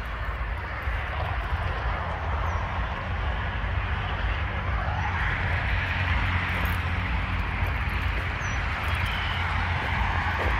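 Steady hiss of road traffic with a low wind rumble on the microphone, and a few faint high bird chirps.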